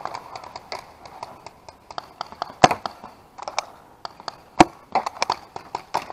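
Paintball gunfire during a game: an irregular scatter of sharp pops from markers firing and balls hitting, with two much louder pops two seconds apart near the middle and a quick cluster near the end.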